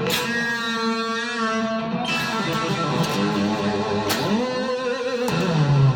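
Electric guitar played solo: sustained notes with vibrato and pitch bends, a new note or chord struck every second or two.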